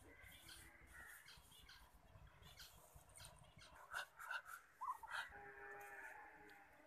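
Muscovy ducks making faint, soft calls: short chirps, then a longer drawn-out call about five seconds in.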